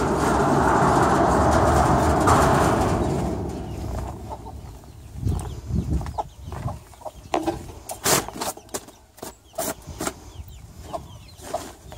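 A loud steady noise dies away about three seconds in. Then domestic hens cluck in short scattered calls, with sharp clicks among them.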